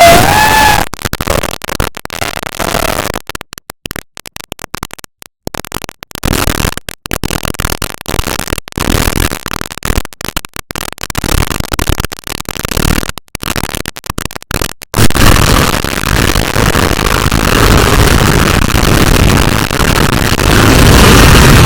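Loud harsh noise that keeps cutting out in short silent gaps, giving way about fifteen seconds in to a steady loud roar with a deep rumble.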